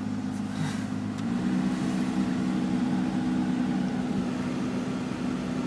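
Honda Civic Aerodeck's engine idling with its heater blower fan running on the top setting, four, pushing air through the vents in a steady rush. The engine's hum changes pitch about a second in.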